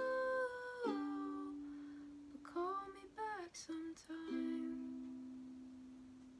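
Ukulele playing the closing bars of a song with a soft singing voice. A held note drops about a second in, a short sung phrase follows in the middle, and a last ukulele chord then rings out and fades away.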